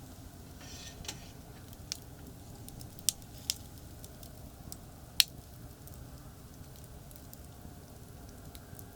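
Campfire crackling, with about five sharp pops over the first five seconds, the loudest about five seconds in, over a steady low rumble of distant highway traffic.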